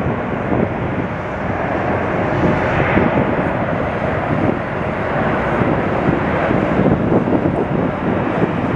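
Jet engines of a twin-engine widebody airliner rolling fast along the runway: a steady, loud rushing noise.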